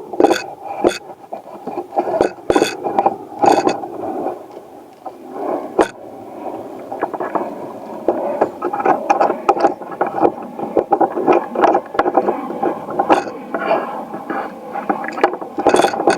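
Fishing gear being handled aboard a small plastic fishing boat: a busy, irregular run of clicks, knocks and scraping, denser in the second half.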